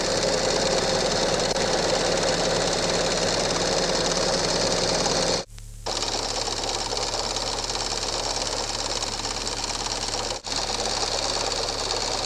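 Steady mechanical whirr of a home-movie film projector running, with a low mains hum underneath; the sound drops out briefly about five and a half seconds in and again about ten seconds in.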